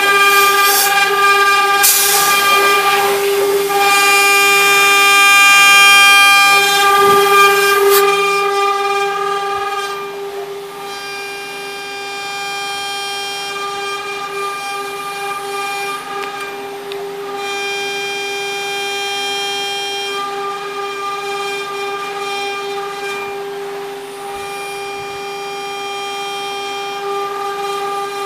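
CNC engraving machine's spindle running with a steady high whine. From about 2 to 8 seconds a loud harsh hiss of the cutter working the mould plate rides over it and stops abruptly, leaving the spindle whine alone and quieter.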